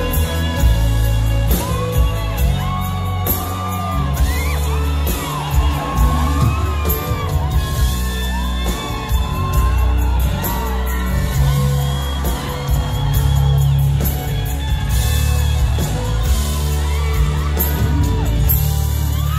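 Live band music from a concert: a gliding lead melody over heavy, steady bass and drums, with whoops and shouts from the crowd.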